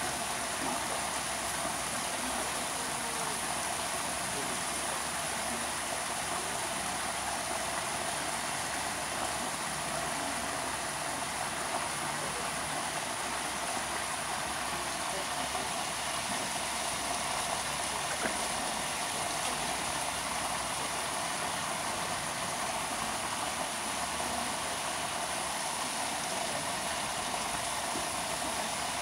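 Steady rushing of running water, an even hiss that does not change throughout.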